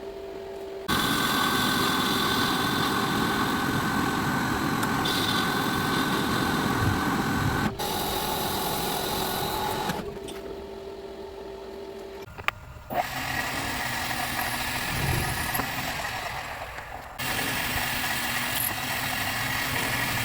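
A machine tool's electric motor running steadily with a whine, in several short clips that cut in and out abruptly.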